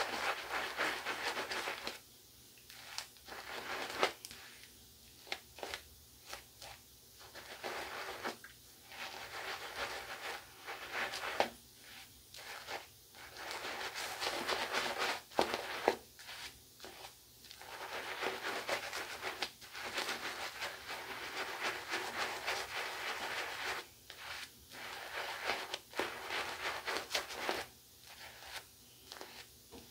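Two-band badger shaving brush working lather onto two days' stubble: stretches of scratchy brushing, each a second to a few seconds long, broken by short pauses.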